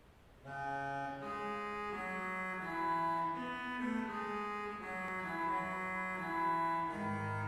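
Pipe organ playing a four-voice contrapuntal piece, entering about half a second in with several sustained lines moving at once.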